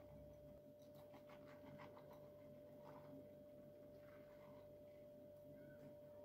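Near silence: room tone with a faint steady hum, and a few faint ticks and rustles as crumbled cheese is shaken from a glass bowl onto pastry sheets, mostly in the first half.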